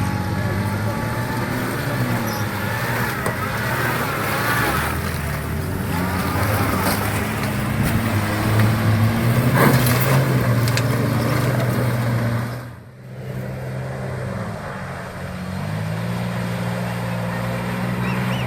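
Off-road 4x4 vehicle engine running and pulling under load, its pitch stepping up and down, with a brief sharp drop-out about thirteen seconds in.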